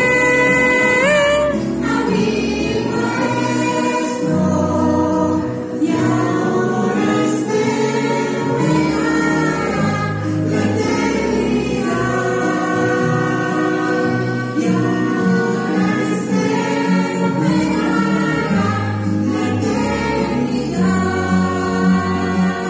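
Christian worship hymn: choir-style singing with long held notes over musical accompaniment.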